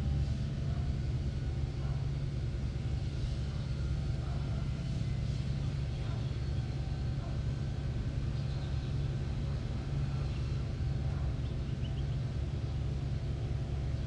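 Steady low engine rumble with a faint hum, with a few faint bird chirps high above it.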